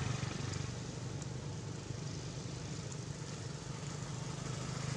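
An engine running steadily at a low hum, under a haze of outdoor background noise.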